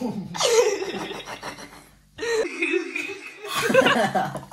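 Laughter in two stretches, with a short break about two seconds in.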